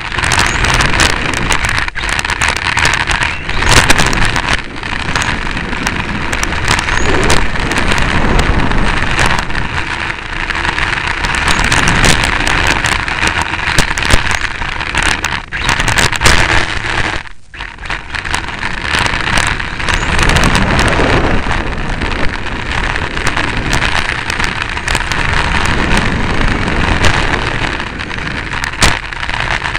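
Onboard sound of a 1/10 scale electric touring car lapping an asphalt track: a loud, steady rush of tyre and wind noise with many quick clicks and rattles from the chassis over the surface, dipping briefly about halfway through.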